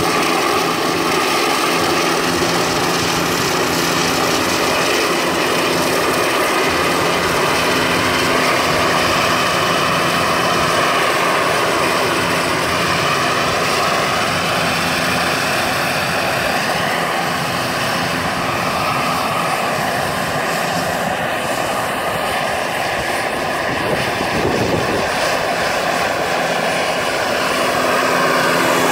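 Turbine-powered Vario radio-controlled scale helicopter in flight: the steady whine of its small gas turbine over the rush of the rotor. The whine wavers in pitch as the model manoeuvres, and the sound grows louder near the end as it comes close.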